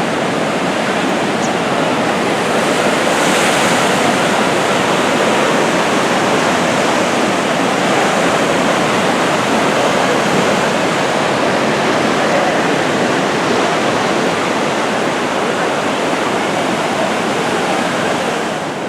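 Sea surf washing onto a beach: a steady, dense rushing of breaking waves.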